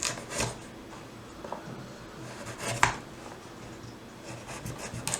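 Kitchen prep handling sounds: a few light knocks of a utensil or knife on food or a board, the clearest nearly three seconds in, with soft scraping between.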